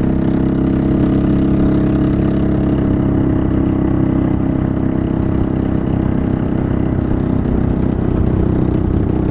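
Motor scooter engine running steadily at cruising speed, with wind rushing past.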